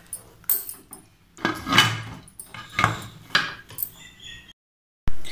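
Aluminium pressure cooker being stirred with a spatula and then its lid fitted and closed: a series of metal clanks and scrapes, about six over four seconds. The sound cuts to dead silence briefly near the end.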